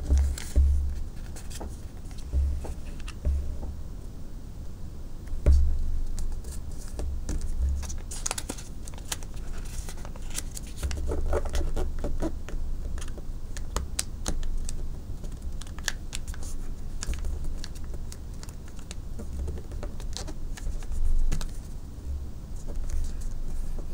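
Origami paper being folded and creased by hand on a wooden table: scattered rustles, taps and clicks of the paper and fingertips, with dull bumps against the table.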